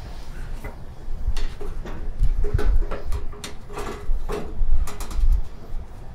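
Flat steel kabob skewers knocking and clinking against the metal grill as they are set down over the flame, a series of sharp clicks from about a second in, over a low rumble.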